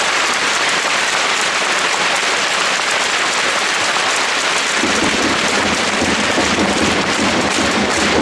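Stadium crowd applauding, a dense, steady clapping. About five seconds in, a deeper pounding beat joins: supporters' drums starting up.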